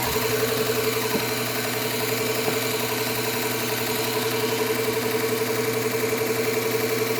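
Belt sharpener's electric motor running steadily at full speed with a 120-grit Cubitron belt fitted, a constant hum with no grinding: the belt is spinning unloaded, just after spin-up.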